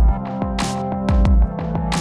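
Electronic background music with a steady beat: a low kick drum and bright percussive hits over sustained synth tones.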